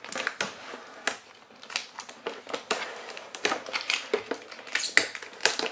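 Packaging tape being pulled off a product box, with irregular crackles and snaps of tape and packaging.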